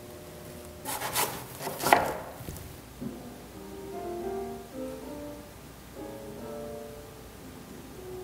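Brief scraping and rubbing noises for about a second and a half, then soft instrumental music with slow, gently changing notes starting about three seconds in.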